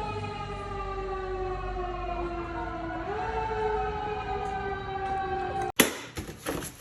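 A dog howling in one long drawn-out note, its pitch sliding slowly down and then stepping back up about three seconds in. It cuts off abruptly with a sharp click near the end.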